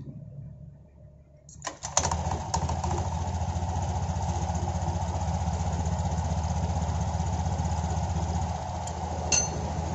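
Honda Genio scooter's 110 cc single-cylinder engine starting about two seconds in, then idling steadily with the CVT cover off, the drive belt and pulleys spinning in the open. It runs smooth, with no jingling rattle from the CVT, its belt turning evenly.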